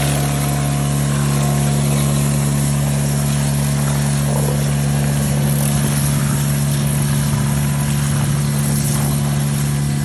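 Hydrovac truck's engine and vacuum blower running with a steady hum while its suction hose clears a catch basin.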